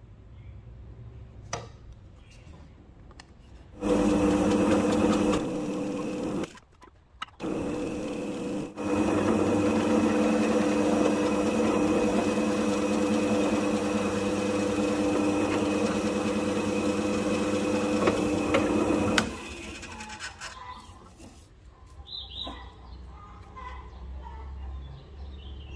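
Bench drill press motor running with a steady hum as a twist bit drills holes through a small grey plastic part. It starts about four seconds in, stops briefly twice, then runs steadily for about ten seconds before switching off, followed by light handling of the part.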